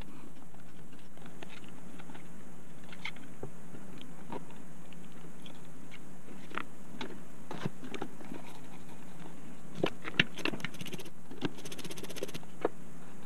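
Scattered small clicks and crackles over a steady low hum, growing denser about ten seconds in, with a brief spell of rapid ticking near the end: a soldering iron and desoldering wick working flux-covered pads on a laptop adapter's circuit board.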